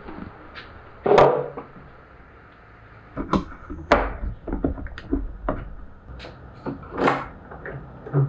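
Wooden knocks and clunks from pine and hand tools being handled on a workbench: a series of irregular sharp strikes, the loudest about a second in.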